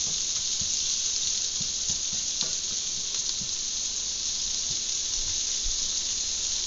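Onions and garlic frying in butter in a pan, sizzling steadily, with a few faint ticks.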